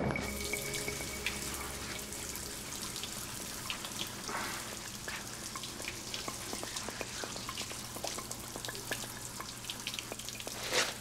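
Kitchen faucet running steadily into a sink while hands and forearms are scrubbed under the stream, with small splashes all through.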